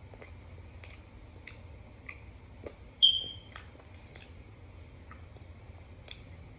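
Someone chewing and crunching chunks of dry starch, with soft crunches coming about every half second to second. One louder, sharp crunch with a brief high squeak comes about three seconds in.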